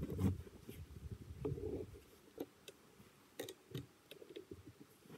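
Low, uneven wind rumble on the microphone for about two seconds. After that it is quieter, with a few faint scattered clicks.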